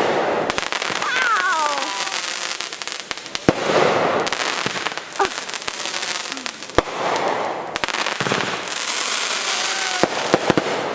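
Consumer aerial fireworks going off in quick succession: repeated sharp bangs over a steady crackling of bursting stars.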